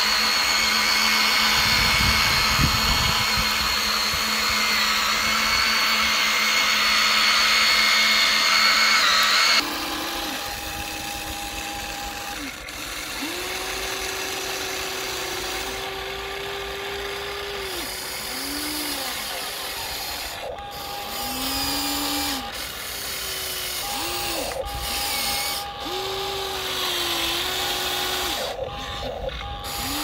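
Huina remote-control toy excavator's electric motors and gears whining. A loud steady high whine runs for about ten seconds and stops suddenly; after that come quieter short motor runs that start and stop, each rising and falling in pitch, as the arm and bucket move.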